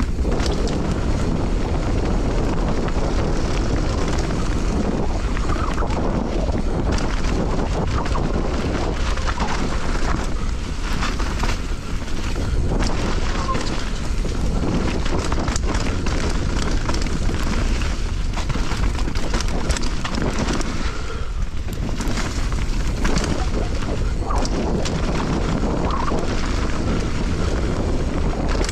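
Wind buffeting the camera microphone as a mountain bike descends a trail at speed, with a constant low rumble and frequent short clatters and knocks from the bike rattling over rough ground.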